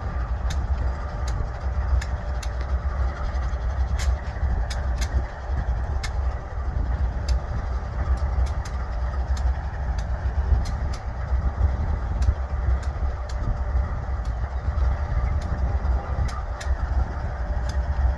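Union Pacific diesel freight locomotives rolling slowly past with a steady low rumble. Sharp clicks come at irregular moments throughout.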